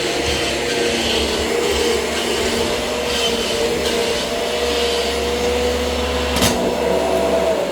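Kirby Generation 6 upright vacuum cleaner running steadily with a constant motor whine, with one sharp knock about two-thirds of the way through. At the very end its pitch starts to fall as the motor is switched off and winds down.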